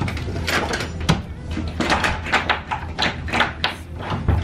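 Handling at a dorm room door: a bunch of keys jingling and the door's lever handle and latch clicking, a run of irregular clicks and rattles.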